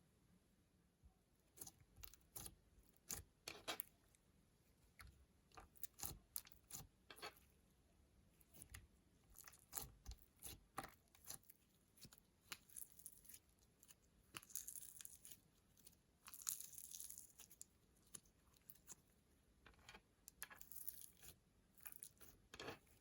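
Hands working slime, making sticky, irregular clicks and crackling pops. Two longer rasping stretches come near the middle.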